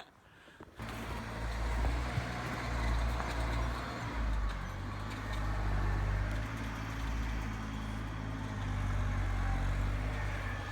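A motor vehicle's engine running steadily, starting abruptly about a second in.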